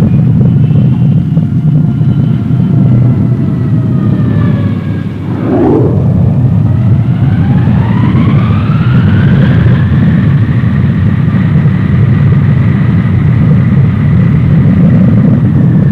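Four General Electric TF39 turbofan engines of a Lockheed C-5A Galaxy on the runway: a steady low rumble with high whines. The whines fall during the first few seconds, break off briefly about five seconds in, then rise over several seconds and hold steady as the engines spool up.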